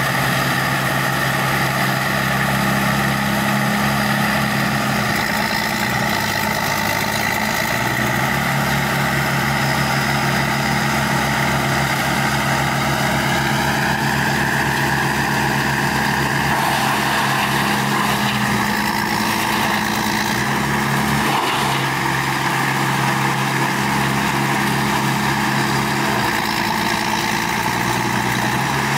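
Heavy diesel machinery running steadily: a hydraulic excavator and a wood grinder at work. The engine note shifts in pitch several times, with a higher whine that rises and falls.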